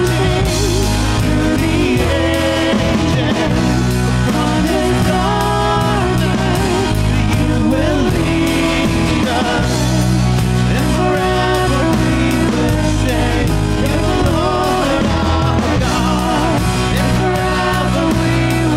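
Live worship band playing a contemporary worship song: singers over electric guitars, bass guitar and a drum kit, at a steady full volume.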